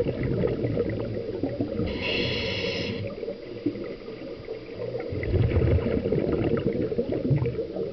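Scuba diver breathing through a regulator underwater: a short hissing inhalation about two seconds in, then a long rumbling exhalation of bubbles from about five seconds in.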